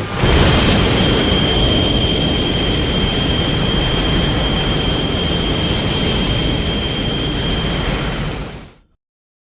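Destoroyah sound effect from Godzilla vs. Destoroyah (1995): a long, loud rushing noise with a deep rumble underneath and a thin, steady high whine held over it, fading out near the end.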